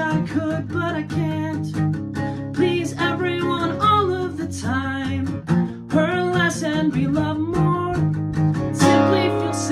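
Strummed acoustic guitar with a voice singing over it.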